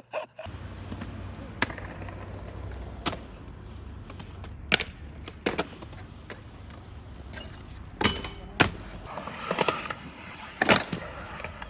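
Streetboards clacking and landing: sharp board impacts come every second or two, some in quick pairs, over a low steady rolling rumble.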